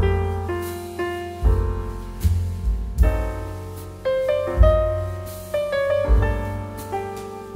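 Background piano music: struck notes and chords, each fading before the next.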